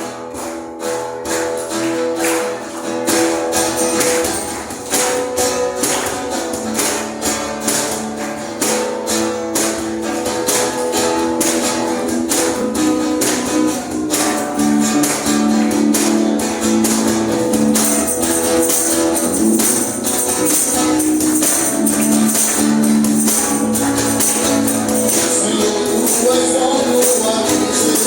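A live church band playing an upbeat praise song, with a tambourine shaken on a fast steady beat over strummed strings, and singing.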